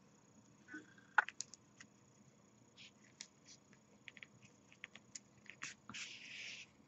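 Faint hand-sewing noises from a tapestry needle and yarn being worked through a crocheted toy: scattered light clicks and taps, then a short rustle about six seconds in as the yarn is drawn through.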